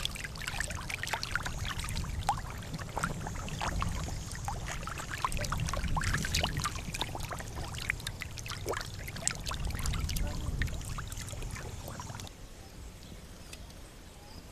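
Shallow muddy water pouring down a field channel, with many small, sharp splashes and slaps from fish wriggling and flopping in it. It turns quieter about twelve seconds in.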